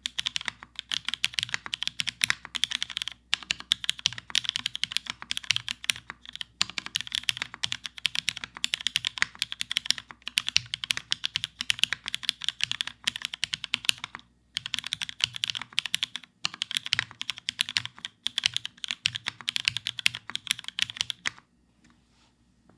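Fast typing on a Theca X Rubrehose mechanical keyboard with Cherry Hyperglide MX Black linear switches in an aluminium plate and GMK keycaps: a dense run of key clacks broken by a few short pauses, stopping about 21 seconds in.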